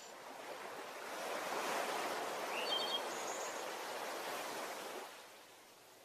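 A rushing noise swells for about four seconds and then fades. A few brief bird chirps sound over it in the middle.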